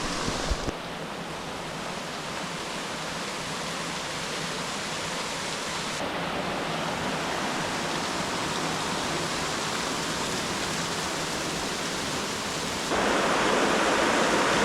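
Steady rush of falling water from a waterfall, jumping suddenly louder about thirteen seconds in.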